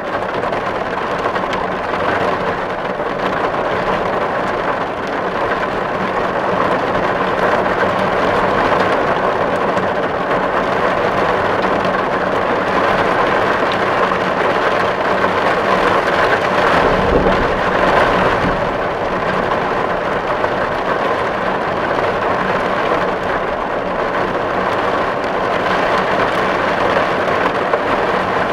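Steady, heavy rain drumming on a tin roof, an even hiss of many drops on the metal. A brief low rumble swells up about two-thirds of the way through.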